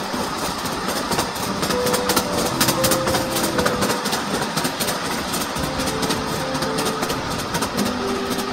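Miniature ride-on park train running along its narrow-gauge track: a steady rumble and rattle with frequent clicks from the wheels on the rails.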